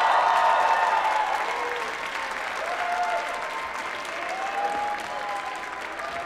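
Audience applauding and cheering, loudest at the start and thinning out after about two seconds, with a few drawn-out shouts from the crowd.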